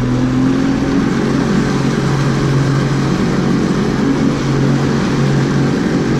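Motorboat engine opening up to tow a tube: its pitch rises about the start, then holds steady at speed, over the rush of the wake and wind.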